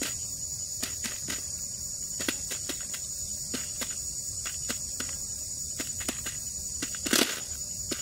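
A quail pecking grain from a trap's bait tray: irregular sharp taps, two or three a second, with a longer scuffle about seven seconds in. Beneath them, a steady high-pitched insect drone.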